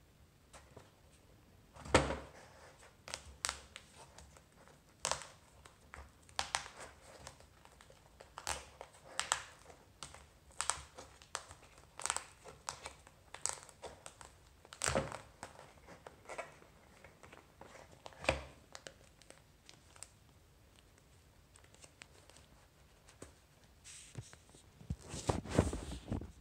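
Thin tissue-paper wrapping crinkling and rustling as a hand peels it off a tablet, in many short crackles with a few louder knocks of handling the box, and a dense spell of rustling near the end.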